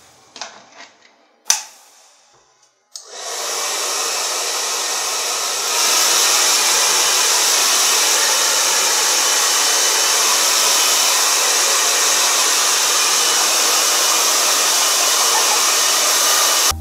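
Handheld electric hair dryer switched on about three seconds in, after a sharp click, then blowing with a steady rush of air. It gets louder about three seconds after starting.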